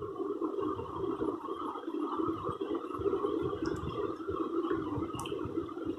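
Oil pastel scribbled back and forth on paper in quick, irregular strokes, over a steady hum of room noise.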